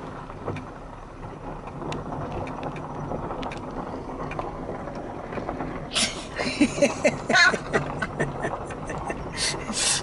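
Car rolling slowly on a dirt road, heard from inside: steady engine and tyre noise. From about six seconds in come louder, choppy rustling and knocks, with short bursts of voice.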